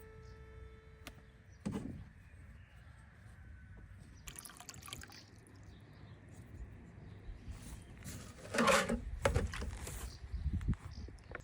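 Water sounds in a few irregular short bursts, the loudest about three-quarters of the way through.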